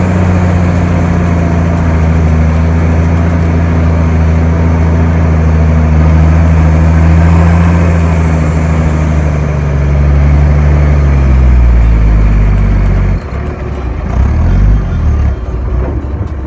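Off-road 4x4's engine pulling steadily through soft sand, with tyre and wind noise; the engine note sinks slowly, then drops away suddenly about 13 seconds in as the load comes off, leaving a quieter, uneven rumble.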